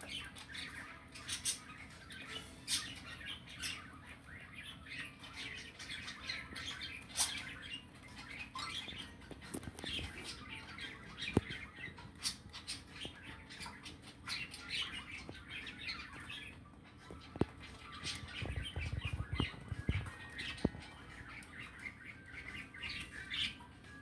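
Budgerigars calling in many short, high chirps, with a few sharp clicks in between.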